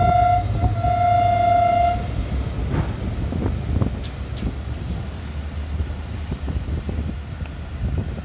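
Diesel locomotive horn sounding one steady note, with a short break, that ends about two seconds in. Then the Millat Express passenger coaches roll past with a steady low rumble and occasional wheel knocks.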